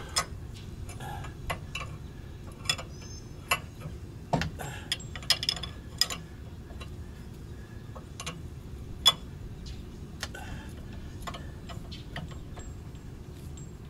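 Socket ratchet clicking in short, irregular runs as the jam nut under a weight distribution hitch head is tightened, with one sharper metallic click about nine seconds in. A steady low hum sits underneath.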